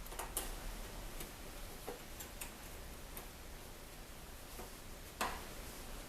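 Scattered light clicks and taps of small screws and nuts being fitted into a plastic glove box, with one sharper click about five seconds in.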